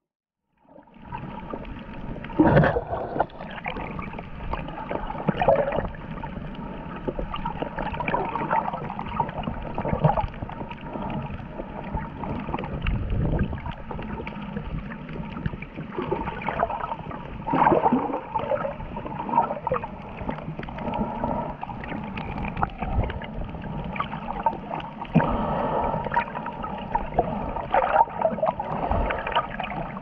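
Water rushing and sloshing around an underwater camera, with irregular louder surges and gurgles. It starts about a second in after a brief silence.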